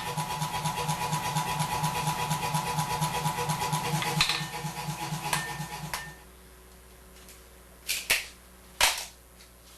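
Power forging hammer (air hammer) striking hot steel bar in a fast, even run of about five blows a second, then stopping suddenly about six seconds in. Two sharp metallic clanks follow near the end.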